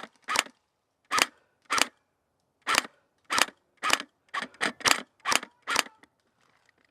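Airsoft AK-47 rifle firing single shots: about eleven sharp cracks, spaced irregularly and coming faster in the second half, stopping about a second before the end.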